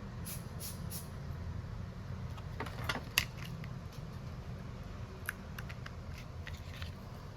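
Scattered light clicks and taps of small tools and phone parts being handled on a repair bench, the loudest a little after three seconds, over a steady low hum.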